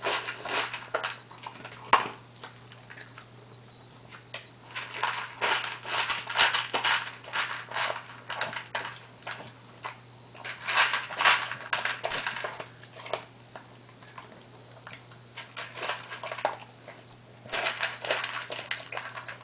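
A cocker spaniel crunching and chewing dry food from a plastic tub, in bursts of crackling bites separated by short pauses. A single sharp click about two seconds in is the loudest moment.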